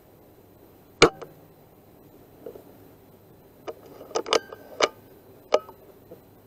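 A single sharp air-rifle shot from a Weihrauch HW100 pre-charged pneumatic about a second in. A few seconds later comes a run of five or six sharp metallic clicks as the rifle is cycled for the next pellet.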